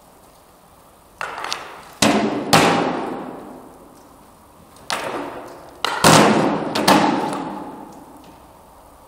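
Hand weapons striking wooden round shields in Viking-style sparring: about seven sharp blows in three quick clusters, each echoing and dying away slowly in a large hall.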